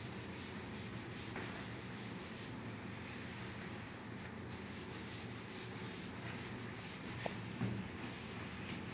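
Cloth duster wiping chalk off a chalkboard in repeated rubbing strokes.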